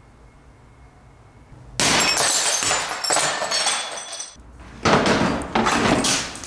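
Window glass shattering suddenly about two seconds in, with shards tinkling and falling for a couple of seconds, then a second crash of breaking glass a little before five seconds in.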